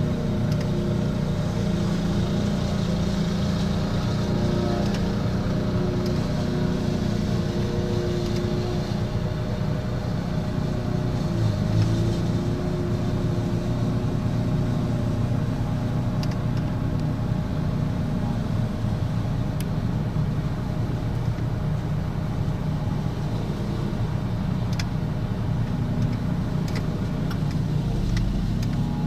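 An engine running steadily at a constant speed, with a few faint ticks in the second half.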